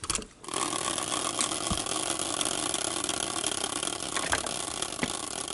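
Steady rustling of a black bag being handled right against the microphone, starting about half a second in, with a few faint clicks.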